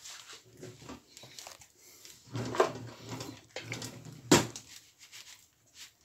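Hands working on a kitchen worktop: scattered light clicks and knocks, with two sharper knocks about two and a half and four and a half seconds in, the second the loudest.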